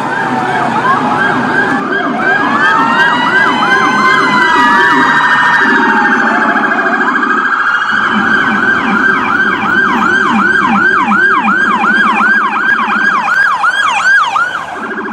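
Electronic emergency-vehicle siren switching between tones. First a slow rising-and-falling wail overlaps a faster sweep, then it settles into a fast yelp of about three sweeps a second. A lower pulsing tone runs underneath.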